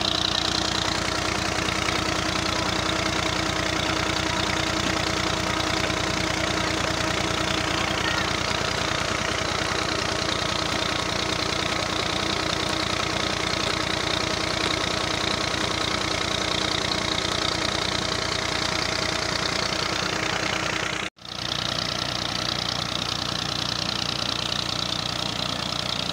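Massey Ferguson tractor's three-cylinder diesel engine running at a steady speed under load, driving a PTO shaft and belt pulley that turn a well pump. The sound drops out for a moment near the end, then carries on.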